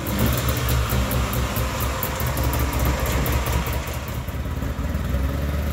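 Snowmobile's air-cooled engine running at idle just after starting, steady, with a fast light ticking over the engine tone.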